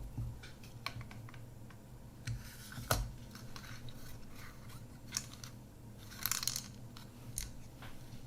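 Small irregular clicks and plastic rattles of a partly dismantled Kodak Ektar H35N half-frame camera being handled while its stiff on-switch is worked, with a sharper click about three seconds in and a run of clicks around six seconds in.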